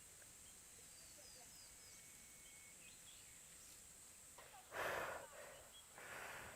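Outdoor ambience: a steady high insect drone with a few faint bird chirps. About five seconds in there is a short rushing noise, the loudest sound, and a softer one comes about a second later.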